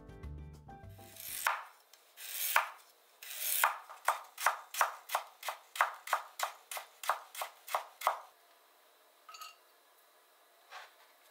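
Background music fading out, then a kitchen knife cutting ginger into thin strips on a cutting board: a few slower cuts, then a steady run of about three chops a second that stops about eight seconds in. A couple of light knocks near the end.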